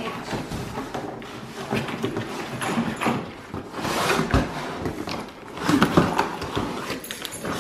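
Cardboard box being torn open by hand: irregular scraping, tearing and rustling of cardboard with scattered knocks, and a dull thump about four seconds in.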